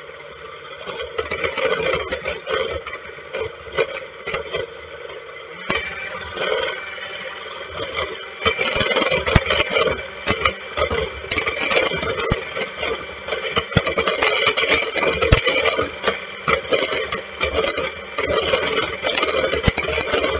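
Electric hand mixer running, its beaters whipping egg whites in a stainless steel bowl toward stiff peaks. The motor hum is steady, with frequent knocks of the beaters against the bowl, and it gets louder about a second in.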